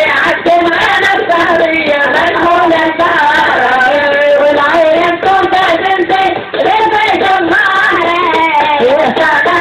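Music with high-pitched singing voices, unbroken and loud.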